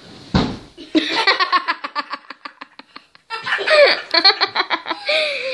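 Children laughing in a quick run of 'ha' sounds that fades out, then laughing again, after a soft thump near the start as they flop onto the bed.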